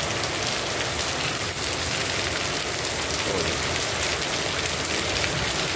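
Heavy rain falling steadily on a cobblestone street: an even, constant hiss.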